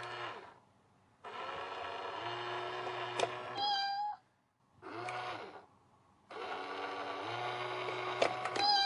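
Battery-powered cat coin bank running twice, its motor whirring as the toy cat pops out of the box. Each run ends in a short recorded meow from the toy.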